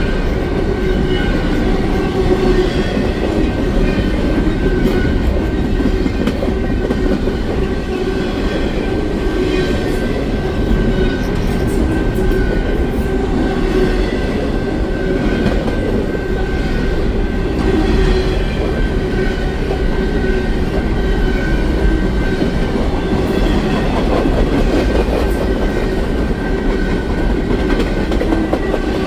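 A long train's cars rolling past close by: steady, unbroken noise of wheels running on the rails.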